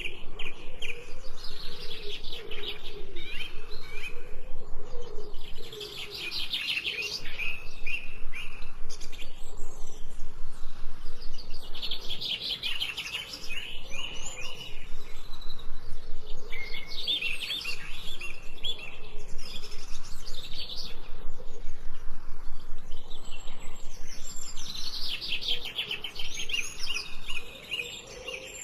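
Small birds chirping in fast trills of repeated notes, coming in bouts a few seconds long, with a fainter low wavering call underneath in the first several seconds.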